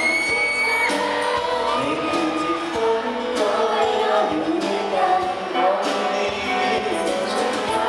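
A man and a woman singing a pop duet live through handheld microphones, with acoustic guitar and bass guitar accompaniment.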